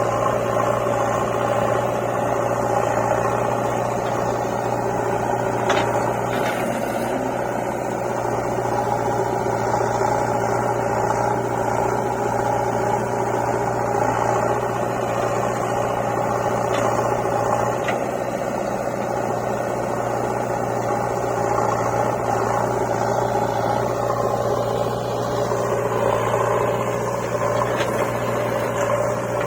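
A machine running steadily, with a constant humming drone that holds the same pitch throughout.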